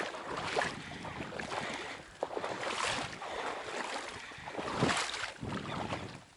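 Shallow marsh water sloshing and reeds rustling, with irregular swishes, the loudest about three and five seconds in.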